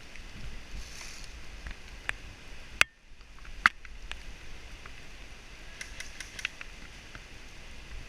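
Low rumble of wind and handling noise on a body-worn microphone, broken by a few sharp clicks: two loud ones a little under a second apart about three seconds in, then fainter ones later.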